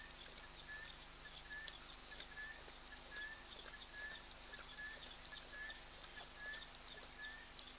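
Faint night chorus: a short, slightly rising high chirp repeating about twice a second, with scattered faint ticking and a steady low hiss.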